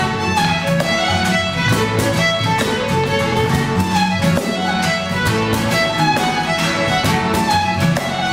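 Live instrumental ensemble: acoustic guitars picked and strummed in a steady rhythm over an electric bass guitar, with a melody line on top.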